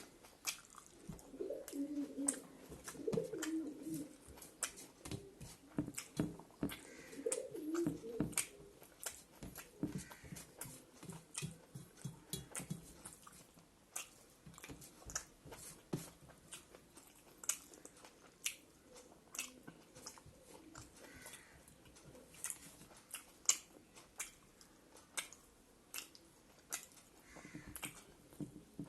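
Close-up chewing and mouth sounds of someone eating a rice meal: wet smacking and frequent small clicks, with several low tonal sounds in the first eight seconds or so.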